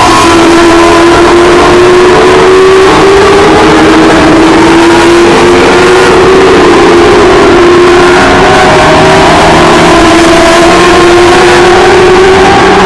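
Several race car engines running hard at once as a pack laps an oval track, loud, their pitches sliding up and down as the cars pass.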